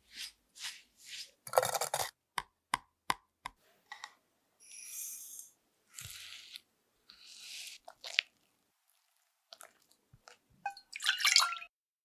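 Silicone spatula stirring and scraping in a glass mixing bowl: first pressing buttery biscuit crumbs into a mass with a crunchy squish and a few sharp taps on the glass, then smearing cream cheese with sugar in long scraping strokes. A louder clattering rattle with a brief ring comes near the end.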